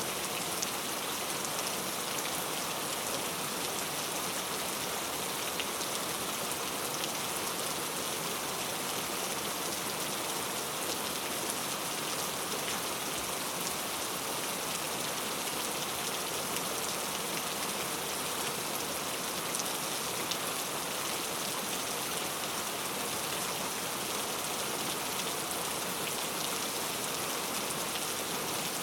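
Heavy rain falling steadily on a tent: a dense, even hiss with scattered drop ticks.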